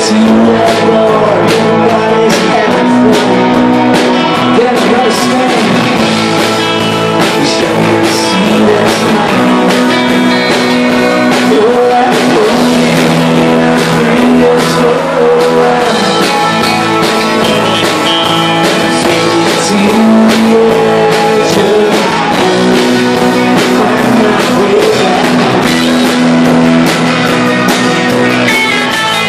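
Rock band playing live, loud and steady: electric guitars, bass and drums, with a man singing the lead vocal.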